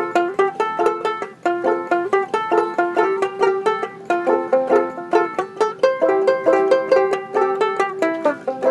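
Banjo ukulele played clawhammer style: a quick, steady run of plucked notes on a folk tune, with one note coming back again and again.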